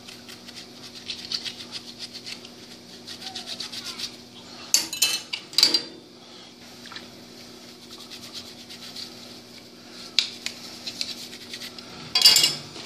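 A small hand brush scrubbing a metal aircraft part in quick short strokes, loosening grit and paint after an ultrasonic cleaning cycle. A few sharp clinks of metal parts against the stainless wire baskets come about five to six seconds in and near the end.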